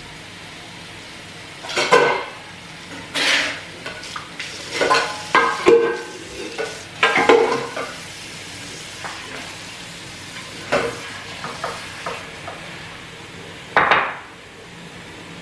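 Kitchen tap running into the sink while dishes are washed by hand, with irregular clatters and knocks of items against each other and the sink; the loudest come about two seconds in, in a cluster in the middle, and once near the end.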